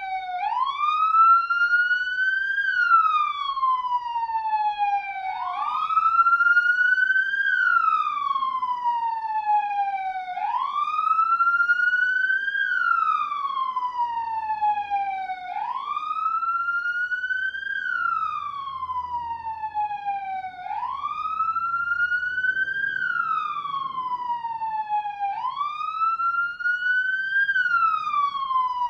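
Arab police siren sounding a continuous wail: the pitch climbs quickly, then slides slowly back down, repeating about every five seconds.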